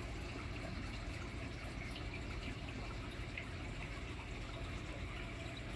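Steady running and trickling water from a large reef aquarium's circulation, with a low hum beneath.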